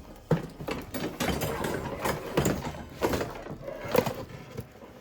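Cardboard packaging being handled and rummaged through, with a steady run of rustles, scrapes and knocks.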